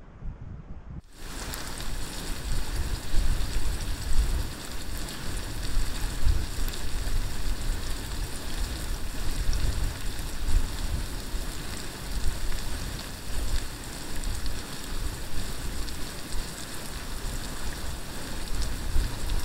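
Salmon fillet and vegetables sizzling in a pan on a camping gas stove: a dense, even hiss with small crackles, over a low, uneven rumble.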